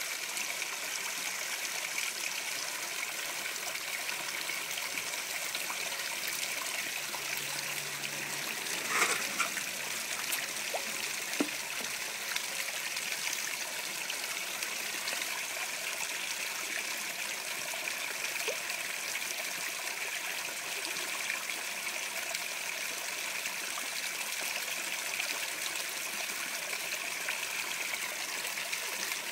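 Water trickling steadily into a koi pond, a constant running-water sound, with a couple of short sharp sounds about a third of the way in.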